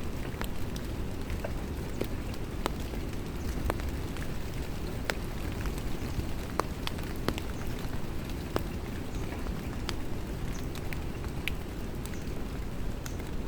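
Rain falling by a river: a steady rushing wash with scattered sharp drops pattering close by.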